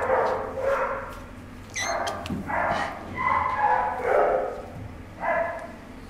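Six-week-old kittens squeaking: a string of short, high mews, one after another every half second to second.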